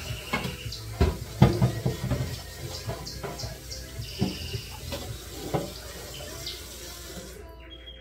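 Kitchen tap running into a sink while refrigerator parts are washed, with several knocks and clatters of the pieces being handled. The running water stops near the end.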